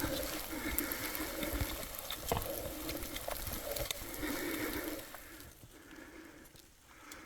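A person breathing hard while climbing uphill, about one heavy breath a second, with scattered crunching steps; the breathing fades about five seconds in.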